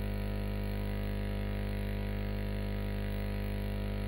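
Steady electrical hum-buzz on the recording: a constant stack of tones that never changes in pitch or loudness.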